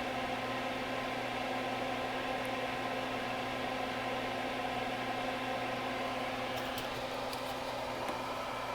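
Soldering fume extractor fan running with a steady hum and whir, with a few faint light ticks near the end.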